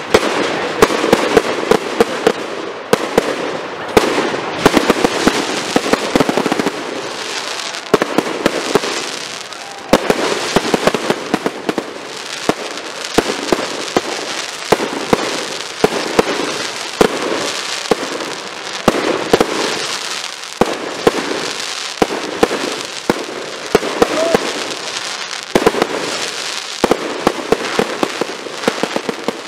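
Fireworks display: a steady stream of sharp bangs from bursting aerial shells, several a second, with continuous crackling in between.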